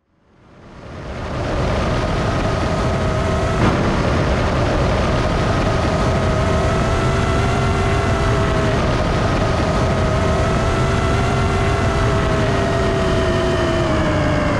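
Steady engine-like rumble with several held tones, fading in over the first second or so. There is a single click a few seconds in, and the tones slide down in pitch near the end.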